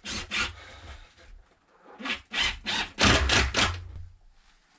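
Wooden shelf boards being handled and set in place: two knocks near the start, then a quick run of about six knocks and scrapes about two seconds in.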